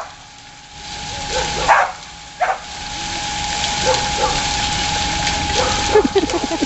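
A dog barking in short single barks at splashing water, over a steady hiss of spraying water that drops out briefly twice; near the end comes a quick run of short yips.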